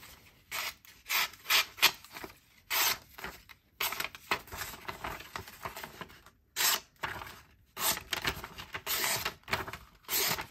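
Folding knife's 154CM steel blade slicing through a sheet of paper in a paper-cutting sharpness test. About a dozen short, irregularly spaced hissing cuts, with the paper rustling between them.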